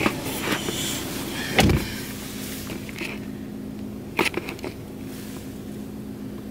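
A car door shuts with a heavy thump about a second and a half in, followed by a steady low hum inside the car and a few light clicks and knocks.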